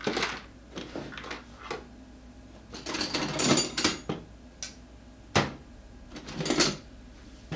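Metal tools and scooter wheel parts being handled: irregular clanks, scrapes and rattles, with one sharp click about five seconds in.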